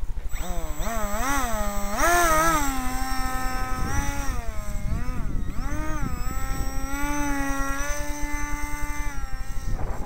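Electric motor and propeller of a Seagull Second Stage RC seaplane whining as it taxis. The pitch swoops up and down several times as the throttle is worked, then holds steadier in the second half and cuts off just before the end.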